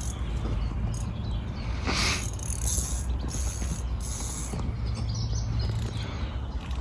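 Carp-fishing reel mechanism clicking and whirring like a ratchet, over a steady low rumble.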